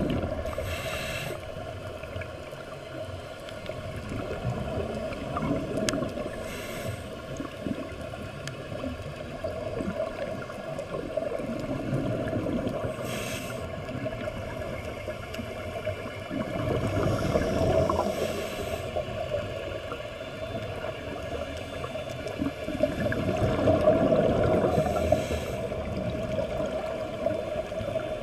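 Scuba diver breathing through a regulator, heard underwater. A short hiss of inhalation comes about every six seconds, each followed by a longer rumbling, bubbling exhalation.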